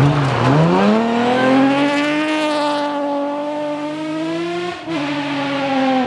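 Rally car engine accelerating hard out of a gravel corner. The revs climb steeply over the first two seconds, then hold high, with a brief break a little before the end.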